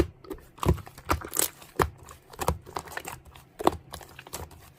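Irregular clicking taps of keys being typed on a keyboard, with uneven gaps between strokes.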